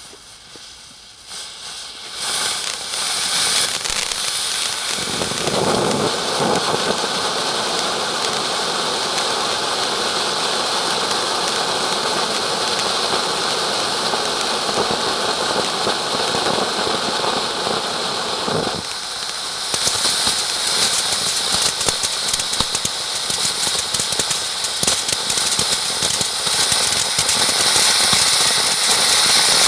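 Ground fountain firework burning: a steady hissing spray that starts about two seconds in, then turns to dense, rapid crackling for the last ten seconds.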